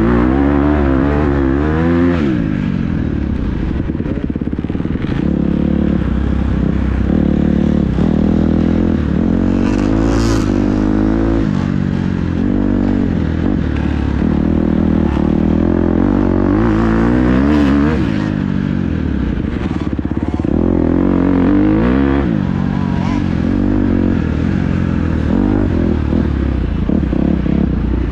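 Dirt bike engine racing along a trail, the revs rising and falling over and over as the rider works the throttle and gears, with rattles and knocks from the bike over rough ground.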